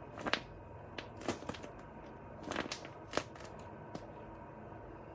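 Paper being handled: a few short, sharp crinkles and rustles at irregular moments, separated by quiet pauses.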